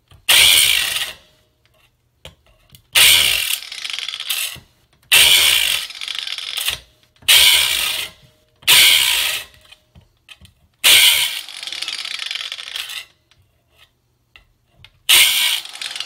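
Angle grinder grinding on steel in about seven short bursts of one to two seconds each, with quiet pauses between, as its wheel wears down the pin of a worn car door hinge.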